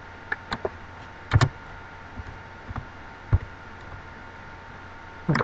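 Scattered single clicks of a computer keyboard and mouse, about seven over a few seconds, the loudest about a second and a half in, as a Photoshop layer is nudged with the arrow keys and the transform committed. Under them runs a steady low electrical hum.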